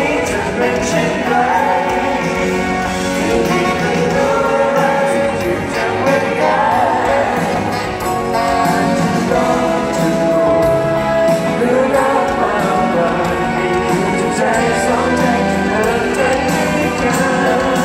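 Live pop concert: a male singer sings over a band's accompaniment, heard through an arena's sound system from the audience.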